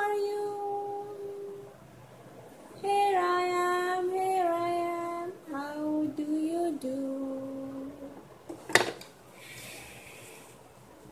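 A woman's voice singing: a held note fading out, then a short phrase that steps down in pitch. About nine seconds in comes a single sharp click of plastic on plastic as the cube goes through the shape-sorter lid.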